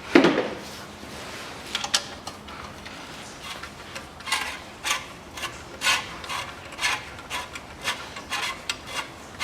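A sharp metallic knock right at the start, then a hand ratchet worked back and forth in short raspy strokes about twice a second, undoing a bolt on the engine's front.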